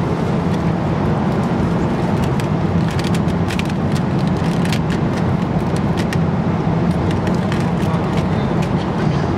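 Steady drone of a jet airliner cabin in flight, with scattered small clicks and crinkles from an in-flight meal's foil wrapper and plastic tray being handled.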